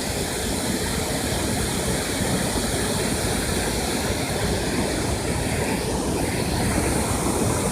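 Steady rushing of water pouring through a dam, an even, unbroken noise.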